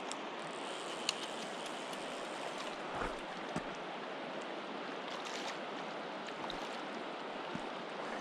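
Shallow river water running steadily over a stony bed, with a few short knocks scattered through it.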